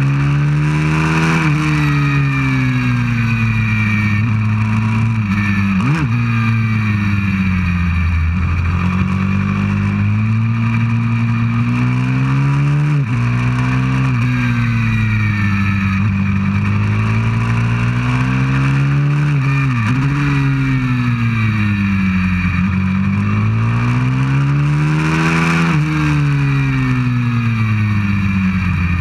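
Onboard sound of a 190cc pit bike's single-cylinder four-stroke engine at racing pace, its pitch climbing and falling in long sweeps as the bike accelerates and brakes for corners. Short, sharp blips of revs come about every seven seconds.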